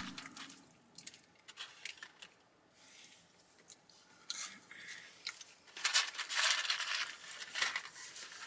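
Close-miked chewing of fast-food fries, with scattered small crunches and mouth clicks that are busiest near the end.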